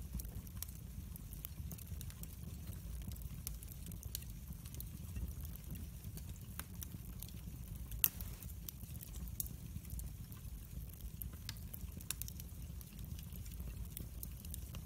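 Split logs burning in a fireplace, the wood crackling and snapping in irregular clicks over a low steady rumble, with one louder pop about eight seconds in.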